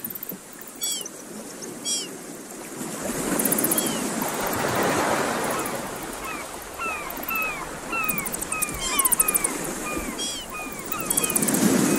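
Ocean surf washing over a rocky shore, swelling and easing. Over it, birds give short, falling whistled calls again and again, higher ones about once a second near the start and a quicker run in the middle, with a few brief high buzzy trills.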